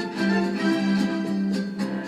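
Instrumental soundtrack music led by violins and other strings, with several held notes sounding together.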